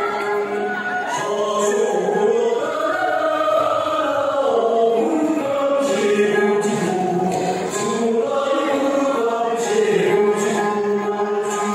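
A group of voices singing a Tibetan folk song together, accompanied by strummed dranyen, the long-necked Tibetan lute.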